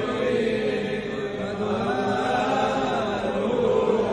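Selichot penitential prayers chanted in Hebrew in the Iraqi Jewish style: a slow chant with long, wavering held notes.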